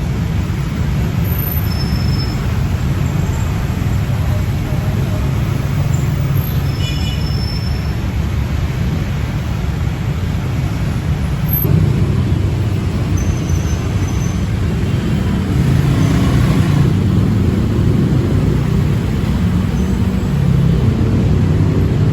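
Vehicle engine rumble with road traffic noise. The sound shifts abruptly about twelve seconds in.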